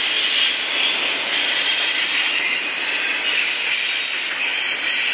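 Freight train of double-stack intermodal well cars rolling past, its steel wheels on the rails making a steady, high rushing noise.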